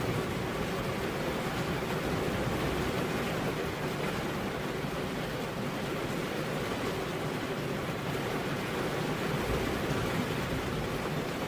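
Steady rain: an even, unbroken hiss with no separate drops or thunder standing out.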